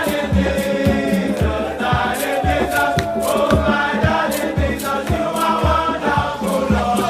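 Background music: a song with group vocals over a steady drum beat and bass.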